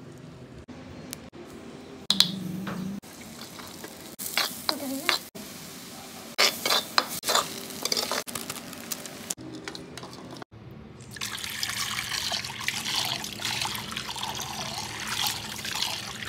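A steel spoon clinks and scrapes against a steel pot and then a wok as noodles are stirred. About ten seconds in, a steady stream of water starts running onto a metal pan as it is rinsed.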